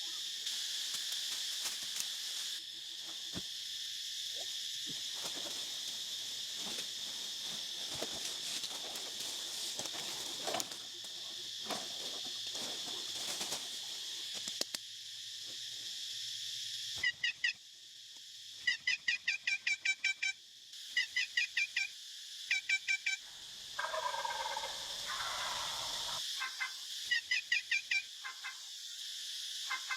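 A homemade turkey call sounding turkey yelps in quick runs of about six to eight sharp notes each, several runs across the second half, with one lower, longer call in between. Scattered clicks come before the calling starts.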